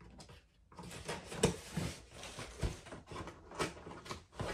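Packaging rustling and crinkling as a shipping parcel is opened and handled, starting a little under a second in, with two sharper crackles.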